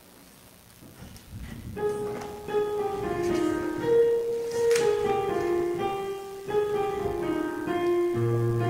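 Piano playing the introduction to a hymn, starting about two seconds in after a quiet moment, with a lower bass line coming in near the end.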